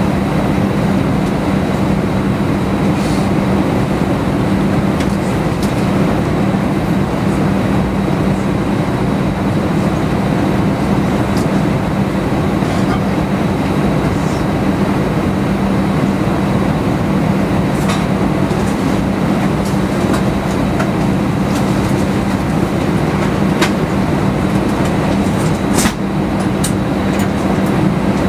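Steady airliner cabin drone inside an Airbus A319: a constant low hum with a few faint clicks.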